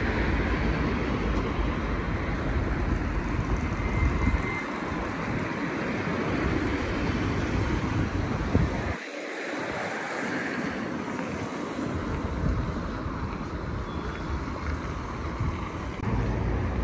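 Street traffic ambience with wind buffeting the microphone; the wind rumble is heavy for the first few seconds, drops off suddenly about nine seconds in, and returns near the end.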